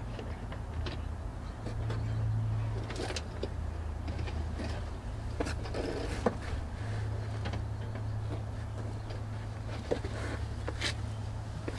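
Coax antenna cable being pulled through the truck's rear cab vent opening, sliding and knocking against the plastic vent and sheet-metal wall in scattered clicks and scrapes, over a steady low hum.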